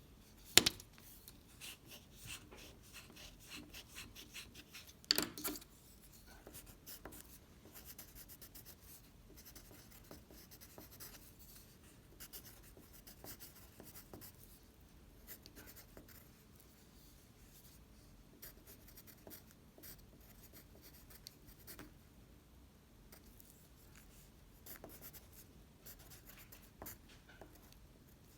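Edible imitation tissue paper being crinkled and eaten close to the microphone: a dense, faint crackling and rustling, with a sharp crack about half a second in and a louder burst of crackling around five seconds in.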